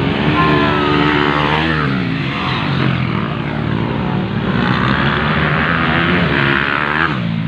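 Motocross dirt bike engine revving hard as the bike comes closer, its pitch rising and falling several times.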